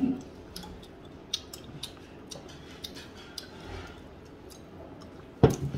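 Light clicks and taps of chopsticks and spoons against dishes during a meal, scattered and irregular, with one louder knock about five and a half seconds in.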